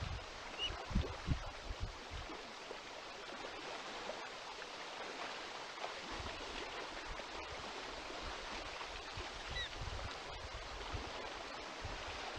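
Wind at an outdoor nest-camera microphone: a steady rushing hiss, with low buffeting gusts in the first couple of seconds. Two faint, short, high bird peeps, one near the start and one about three-quarters of the way through.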